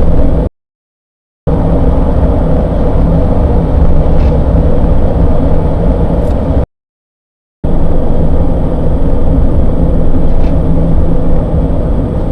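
Low droning rumble inside the cab of a 2017 Honda Ridgeline, from its 3.5-litre V6 cruising between 1500 and 2500 rpm: the repeating noise the owner is asking about and wonders is the variable cylinder management (VCM) at work. The sound cuts out twice for about a second.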